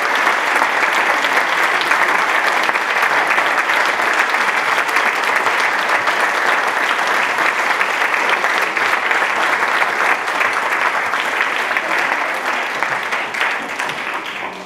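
Audience applauding, a dense steady clapping that dies away over the last couple of seconds.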